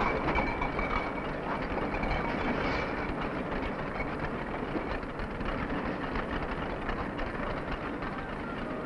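Milk-bottling and packing line running: a steady, dense mechanical clatter of machinery and glass milk bottles knocking along the conveyor. A faint high whine sounds over it for the first three seconds or so.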